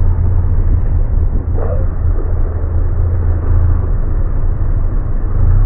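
Steady low rumble of a motorcycle rolling slowly beside a car, picked up by the rider's helmet camera.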